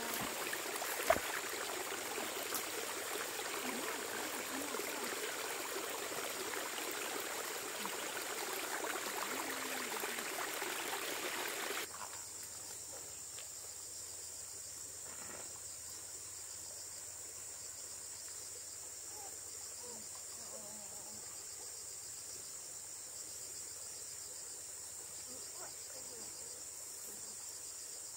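Steady high-pitched insect chirring throughout. For about the first twelve seconds a hiss of running water lies under it, then cuts off abruptly, and a sharp click comes about a second in.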